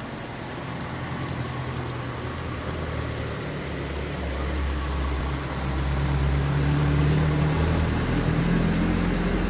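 Truck engine running as it drives through floodwater, getting louder as it comes close about two-thirds of the way in, its wheels throwing up water, over steady heavy rain.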